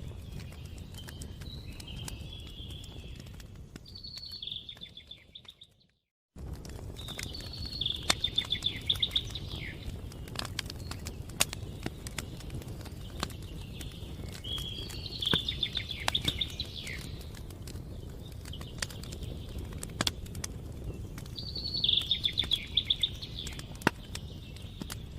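Campfire burning with a low rumble and frequent sharp crackles and pops, while birds sing short trilled phrases every few seconds. About five seconds in the sound fades to silence, then cuts back in abruptly a second later.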